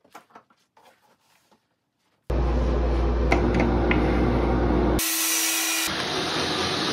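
Light knocks of wooden boards being handled. About two seconds in, a loud power-tool motor starts running with a steady low hum. It cuts off abruptly, and after a brief hiss a cordless drill bores a pocket hole through a pocket-hole jig.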